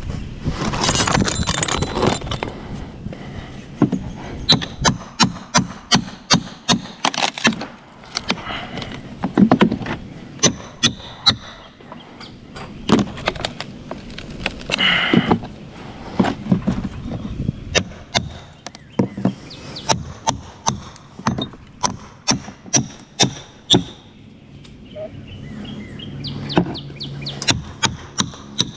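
Claw hammer knocking and prying at rotted wood fascia boards: many sharp knocks in irregular runs, with brief bursts of wood cracking and splitting.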